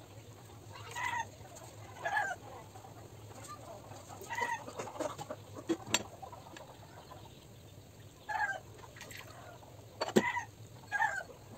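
Chickens clucking, short calls every second or two. Two sharp clinks come through, one about six seconds in and a louder one near the end.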